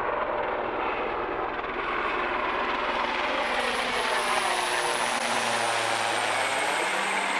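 Military helicopter flying low and passing overhead: steady rotor and engine noise with a high turbine whine that falls slowly in pitch as it goes by.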